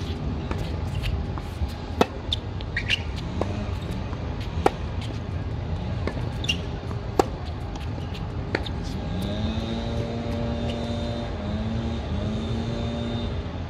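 Tennis ball struck by rackets in a rally: three sharp, loud hits about two and a half seconds apart, with fainter knocks of the ball bouncing and hitting from the far end in between. A steady low hum runs underneath, and in the second half a drawn-out humming tone sets in for several seconds.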